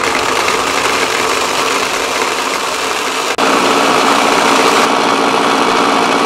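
Battery-powered toy blender running, its small motor whirring as the blade spins the contents of the plastic jar. A brief break about three and a half seconds in, after which it runs on with a steadier hum.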